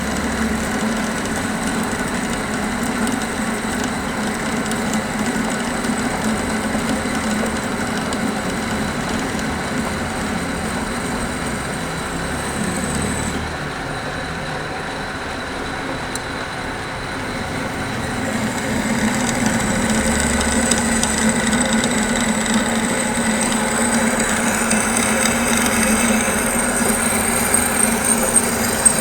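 Machine motor running with a steady hum and a high whine. The whine drops away for a few seconds about halfway through, then comes back stronger toward the end.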